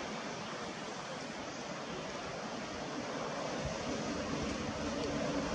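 Steady outdoor wind and sea noise, an even rushing hiss with no distinct events. A faint low hum comes in about two-thirds of the way through.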